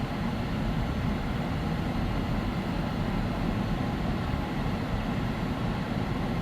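Steady low road and engine noise heard inside a moving car's cabin.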